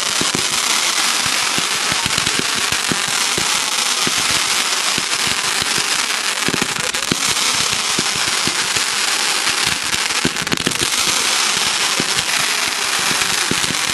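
Fireworks crackling: a dense, continuous sputter of many small pops and cracks, with some louder bangs among them.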